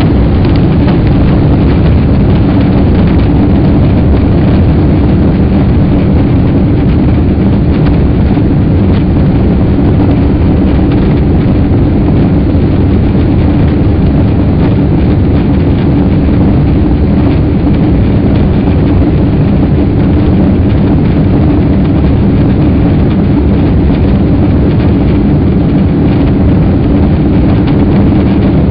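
Steady, loud jet engine and airflow noise heard inside the cabin of a Boeing 777, with a constant low hum under the rush.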